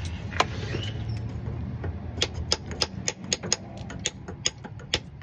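Light hammer taps driving a new shifter linkage seal into a TH350 automatic transmission: a single tap about half a second in, then a run of quick light taps, about three or four a second, from about two seconds in.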